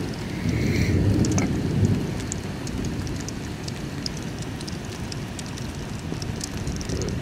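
Thunder rumbling during the first two seconds, then dying away under steady rain with scattered drops ticking.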